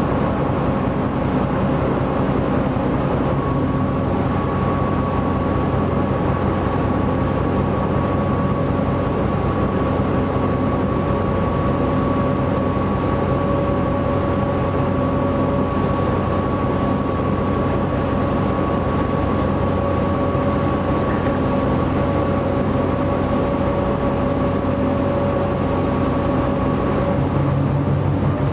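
A ship's engine running steadily under way, heard on board: a constant low drone with an even throb and a faint steady whine.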